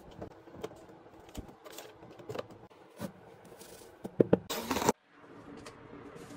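Handling sounds: light taps and crinkles of plastic-wrapped packs, then a loud rustle as a disposable cotton towel sheet is pulled and handled about four and a half seconds in. A faint steady hiss follows after a cut.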